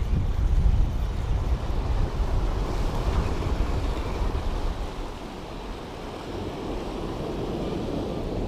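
Sea surf washing, with wind buffeting the microphone; the wind rumble is heavier in the first half and eases about halfway through.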